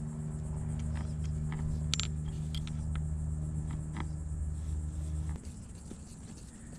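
A steady low machine hum that cuts off about five seconds in. Over it come a few light metallic clicks as screws are handled and fitted into their holes.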